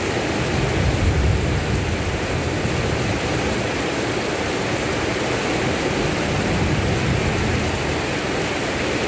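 Steady rain falling on a concrete road and roadside grass: a dense, even hiss with a low rumble underneath, slightly louder about a second in.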